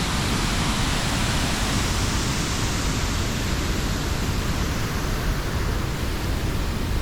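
Turbulent river water rushing over rocks, a steady, even rush of white water.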